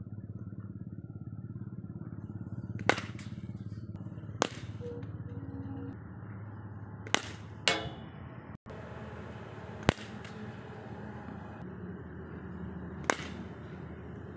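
Sharp cracks of a cricket ball striking the bat and bouncing on the concrete practice pitch, about six spread a few seconds apart, one followed by a brief ringing tail, over a steady low hum.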